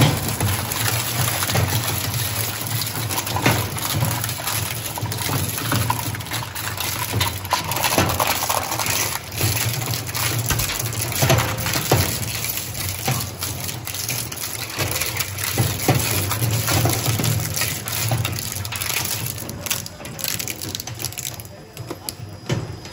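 Twin-shaft industrial shredder crushing hard plastic scrap: a dense run of cracks, snaps and clattering over the steady low hum of the drive, briefly quieter near the end.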